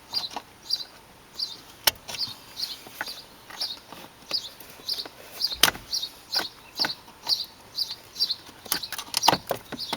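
Wire cutters nibbling away the plastic sheath on the end of a hood release cable: a steady run of small snips, about two a second, with a few sharper snaps.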